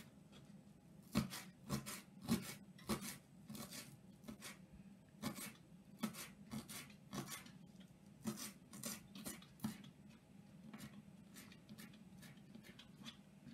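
Kitchen knife chopping fresh dill on a thin plastic cutting mat: a run of sharp, irregular taps, about two a second, that become fewer and fainter near the end.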